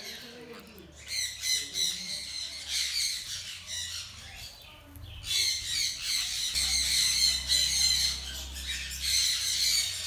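A flock of conures, sun conures and green-cheeked conures, squawking with dense, shrill calls that ease off briefly about four seconds in before starting up again.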